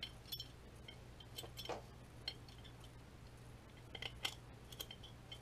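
Faint scattered clicks and ticks of small steel parts in a Glock 22 slide being handled as the safety plunger is pressed and the extractor is worked loose, over a low steady hum.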